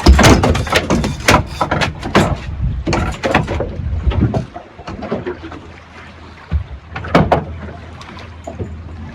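Small boat out on the water in wind: a steady low wind rumble on the microphone, with repeated knocks and slaps. These are densest in the first few seconds, with another pair about seven seconds in.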